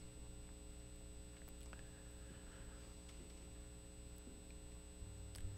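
Near silence: faint steady hum and room tone.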